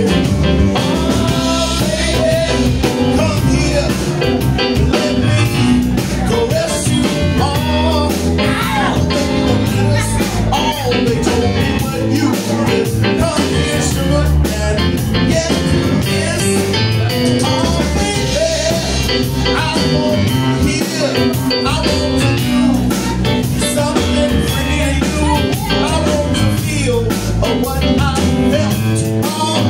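Live band playing: a man singing into a microphone over electric guitar, electric bass and a drum kit.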